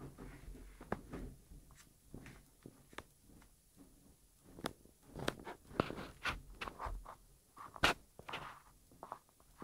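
Faint, irregular clicks, small knocks and rustling, with one sharp click a little over three-quarters of the way through.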